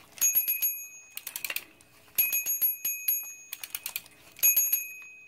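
Bell of a vintage Fisher-Price toy fire truck ringing as the truck is rolled back and forth. It gives rapid dings in three bursts of about a second each.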